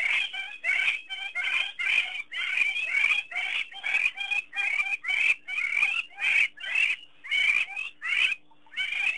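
An animal calling over and over in a rapid, loud series, about two calls a second, each call dipping slightly in pitch. There is a short break in the series near the end.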